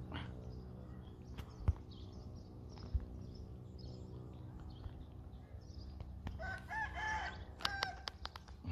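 A rooster crows once, about six and a half seconds in, over small birds chirping and a steady low motor hum. Two sharp knocks come in the first three seconds.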